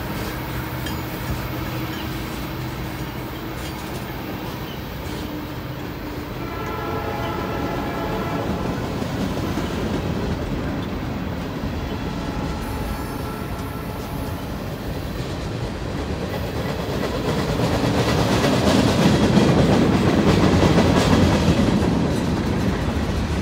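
Freight cars of a long manifest train rolling past close by, a steady rumble and rattle of wheels on rail. A brief tone of several pitches together sounds about seven seconds in. The rolling noise swells louder near the end.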